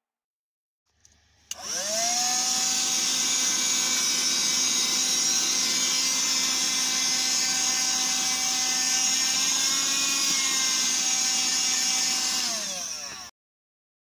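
Black+Decker 3.6 V cordless handheld vacuum switched on after a small click, its motor whining up to speed and then running steadily over a high rushing hiss. Near the end it winds down in pitch and stops.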